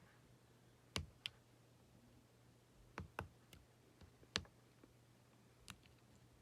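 Several light, sharp clicks and taps spaced irregularly, from small tools and parts of a Hot Wheels die-cast car being handled while its rear wheels are worked on. A faint steady low hum lies underneath.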